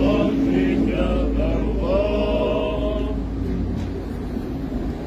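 Voices singing a church chant outdoors, clearest in the first three seconds, over a low rumble.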